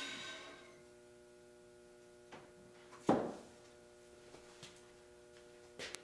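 Bandsaw's running hiss dying away in the first second as the blade coasts to a stop, then a few short knocks of wood being handled, the loudest about three seconds in.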